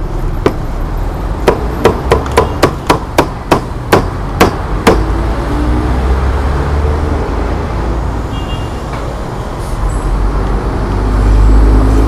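Cleaver chopping roasted meat on a thick wooden chopping block: about a dozen sharp chops over some four seconds, quickest in the middle. After that, a steady low rumble of traffic.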